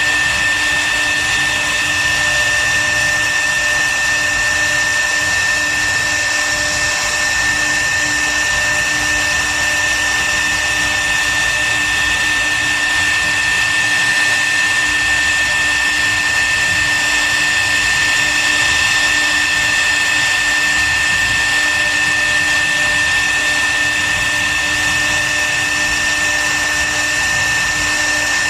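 CNC router spindle running steadily, a high whine over a steady rushing noise.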